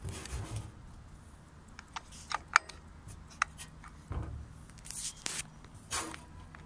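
Handling noise from a Bell & Howell 624 8mm movie camera: scattered sharp clicks, the loudest about two and a half seconds in, among short scraping rustles.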